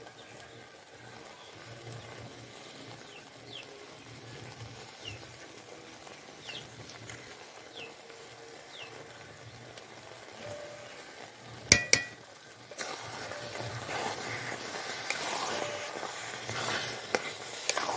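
Thick jujube pickle sizzling gently in a metal karahi while it is stirred. About two-thirds of the way through, a steel spoon knocks sharply twice against the pan, and then the stirring grows louder, scraping through the sticky mixture against the pan.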